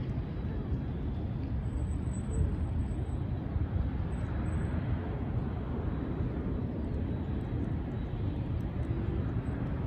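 Airbus A350-900 jet airliner's Rolls-Royce Trent XWB engines heard as a steady low rumble.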